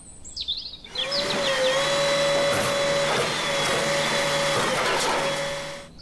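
A small motor whirring steadily, pitch rising slightly as it spins up about a second in, then cutting off just before the end.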